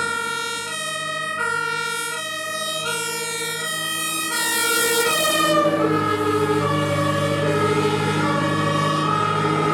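German fire engine's two-tone horn (Martinshorn) sounding, alternating between a high and a low tone about every half second. About halfway the tones shift lower and a truck engine's rumble grows louder.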